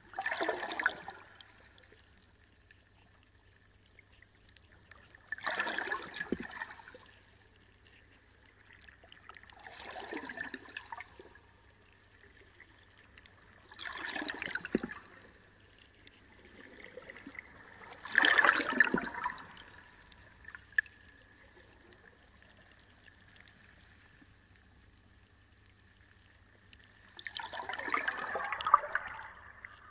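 Reef aquarium water surging and trickling in repeated bursts, one every four to five seconds, over a steady faint high hum.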